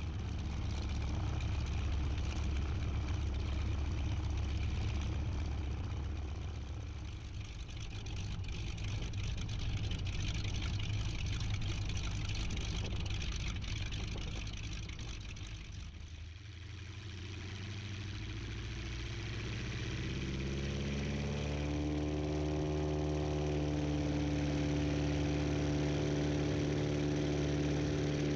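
A T-6 Texan's Pratt & Whitney R-1340 nine-cylinder radial engine runs at low power as the plane taxis. About two-thirds of the way in the engine speed rises in pitch and then holds steady at the higher setting.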